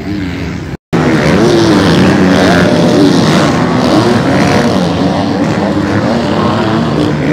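Several MX2 motocross bikes racing past, their engines revving up and down over one another. The sound cuts out for a split second near the start.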